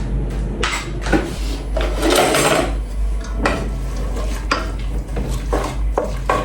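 Kitchen clatter: pots and metal utensils knocking and scraping at irregular intervals, over a steady low hum.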